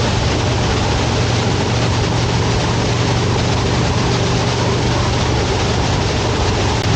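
Harley-Davidson V-twin motorcycle running steadily at road speed, with a steady low engine hum under heavy wind rush on the microphone.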